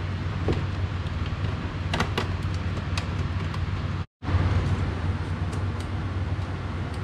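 Light clicks and taps of a bolt and nut being fitted through a motorcycle's plastic lower fairing, over a steady low hum. The sound cuts out for a moment about four seconds in.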